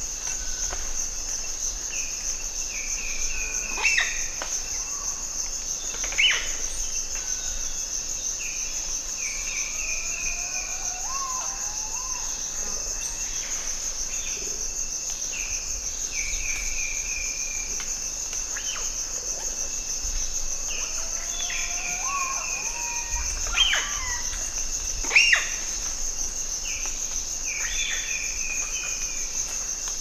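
Rainforest ambience: a steady, high-pitched insect drone under short trilled chirps that repeat every couple of seconds. Sharp, high animal calls stand out a few times, loudest near the start and again near the end, and lower gliding calls come in briefly in the middle.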